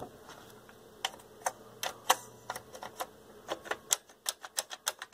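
Front-panel push-button switches on a Denon PMA-770 integrated amplifier being pressed, giving a series of sharp mechanical clicks. The clicks are spaced out at first and come quicker, several a second, in the second half.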